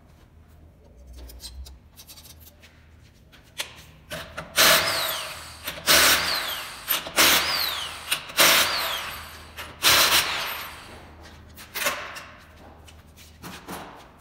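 Cordless impact wrench zipping off the lug nuts of a car wheel: five loud bursts of about a second each, each trailing off in a falling whine.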